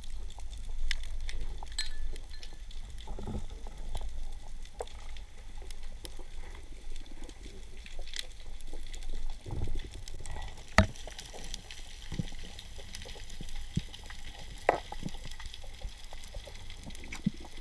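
Underwater ambience over a rocky reef: a steady low rumble of water with scattered sharp clicks and crackles, the loudest a single click about eleven seconds in.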